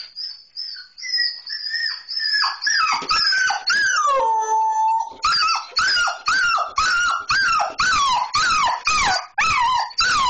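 Border Collie vocalising in excitement. She starts with high-pitched whines, gives one longer held whine about four seconds in, then breaks into a fast run of loud yelping calls, each dropping in pitch, about two or three a second.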